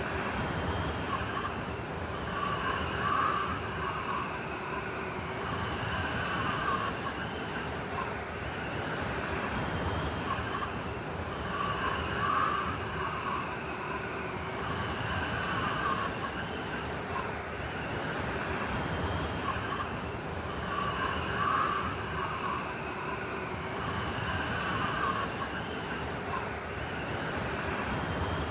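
Blizzard wind blowing hard: a steady rush with wavering, whistling tones that swell and fade every few seconds.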